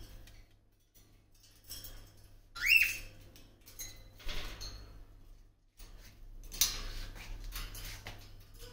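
A parrot gives one short rising call about two and a half seconds in, amid scattered light clicks and rattles.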